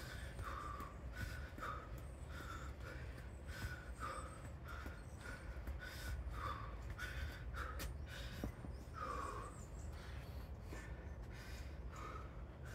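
A person panting hard during strenuous exercise, short forceful breaths coming about twice a second.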